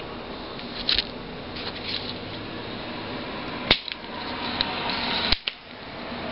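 A soldering iron tip clicking and scraping against solder joints on a circuit board, over a steady hiss. There are a few sharp clicks: one about a second in, the loudest about three and a half seconds in, and another just past five seconds, with scratchy noise between them.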